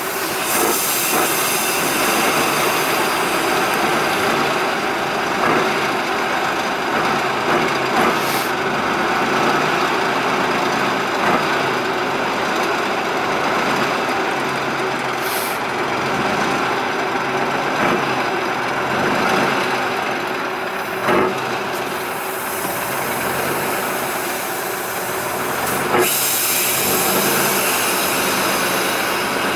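Tatra 813 6x6 trial truck's diesel engine running and pulling at low speed through mud. Short air hisses come a few times, with a longer hiss near the end.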